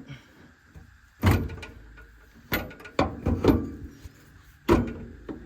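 About five sharp metal clunks and knocks with a short ring after each, the loudest about a second in, as a utility vehicle's drive axle is worked loose and slid out of its wheel hub.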